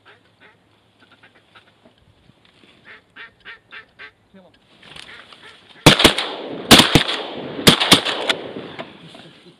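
Faint goose-like honking calls repeating, then a volley of about six shotgun shots from several hunters at once, fired over about two seconds starting around six seconds in.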